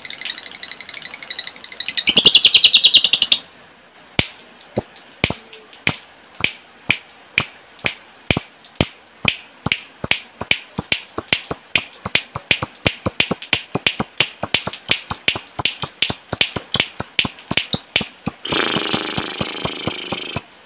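Lovebird calls. A rapid chattering trill (ngekek) for the first three seconds or so is followed by a long run of sharp ticking clicks (ngetik) that speed up from about two to nearly four a second. Another trill comes near the end.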